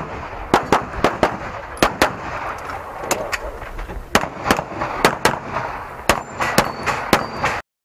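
Rapid semi-automatic pistol fire from a red-dot-sighted Carry Optics handgun: about twenty sharp shots, many in quick pairs, with short pauses between strings as the shooter moves between positions. The sound cuts off abruptly near the end.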